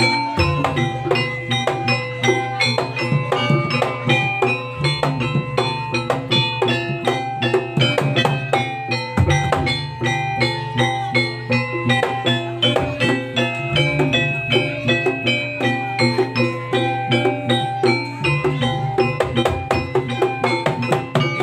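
Javanese jaranan gamelan music: many quick, ringing metallophone notes over drumming in a steady fast rhythm, with a deep low note that changes every four to five seconds.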